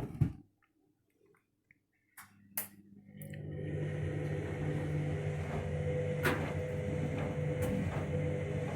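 Washing machine: after a quiet pause and a couple of clicks, its drum motor starts about three seconds in and settles into a steady hum. There are two knocks later on as the drum turns.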